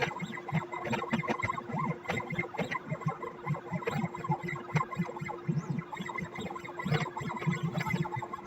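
CNC pen plotter's stepper motors driving the pen through many short, irregular moves: a rapid, uneven run of low pulses and light clicks over a faint steady hum.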